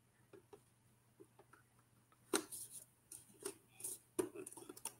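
Small plastic clicks and taps as a flashlight attachment is pressed and fitted against the side of a plastic Mandalorian helmet. The clicks are faint at first, with a sharper click a little over two seconds in and several more after it.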